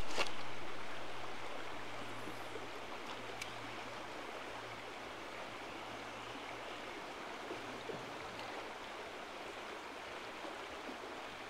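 Small rocky river running steadily over rocks, fading down over the first two seconds to an even rush, with a couple of faint clicks.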